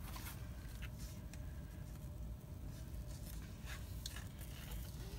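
Faint rustles and light taps from hands placing an adhesive transfer strip on a shirt and handling its peeled-off paper backing, a few brief ones scattered through, over a low steady hum.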